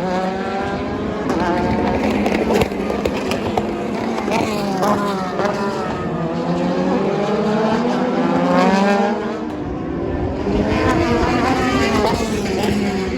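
Several endurance race cars passing at speed, their engine notes overlapping, climbing through the gears and falling away. A few sharp pops cut through.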